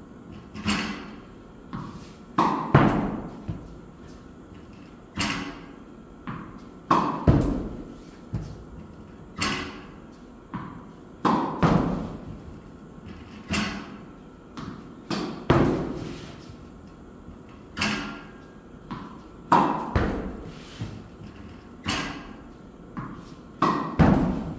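Tennis balls being hit with a racket during backhand practice, each sharp hit with its bounce on the court, repeating about every two seconds.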